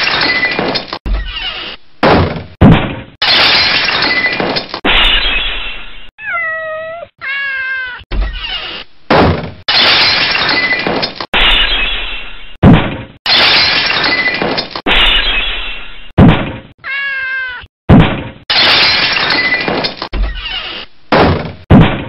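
Cat meows and yowls cut together in quick succession, with a few sharp knocks in between. Two of the cries near the middle are clear, curving meows.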